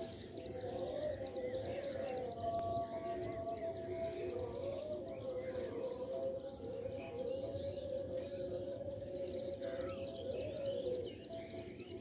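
Small birds chirping in the rice fields, over a long, slowly wavering drawn-out tone and a steady low rumble.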